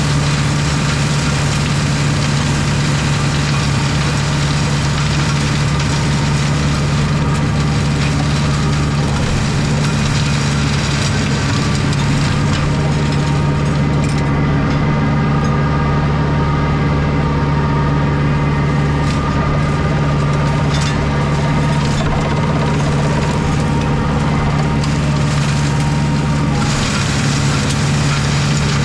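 Small tractor engine running steadily under load while its mulcher shreds dense, years-old blackberry brambles. The high rushing noise thins out about halfway through and comes back strongly a couple of seconds before the end.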